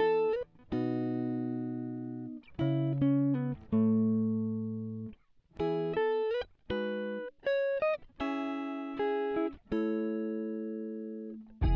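Background music: a plucked-string instrumental playing a slow melody of single notes and chords, each note ringing out and fading before the next.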